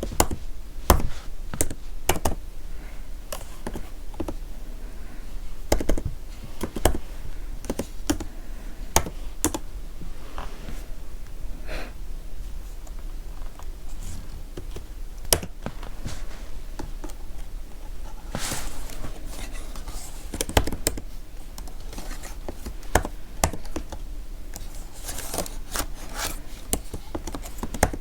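Computer keyboard being typed on close to the microphone: irregular, unhurried keystroke clicks with some louder strokes, and a few brief scratchy rubbing sounds about two-thirds of the way through and near the end.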